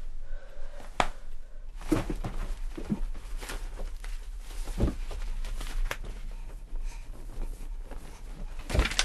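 A few light knocks and rustles at irregular intervals, over a low steady hum.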